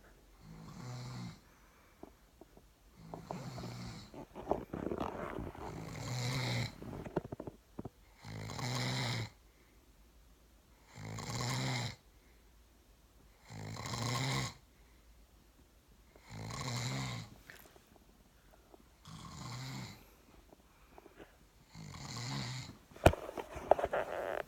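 A man snoring in his sleep, one snore about every two and a half to three seconds, nine or so in all. There is a single sharp click near the end.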